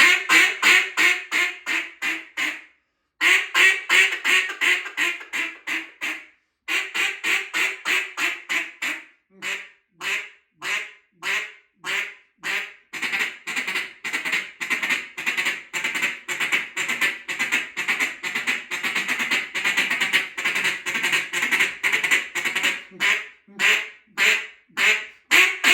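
Short-barrel mallard duck call with a threaded flared keyhole insert, blown in runs of loud quacks. Several strings of quacks are broken by short pauses, then a long, fast, unbroken run of quick notes follows in the second half before it slows to single quacks again.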